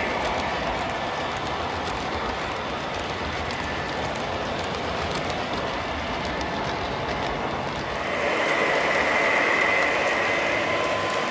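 O gauge model trains rolling past on layout track: a steady rumble of metal wheels on rail. About eight seconds in it grows louder, with a faint high whine on top.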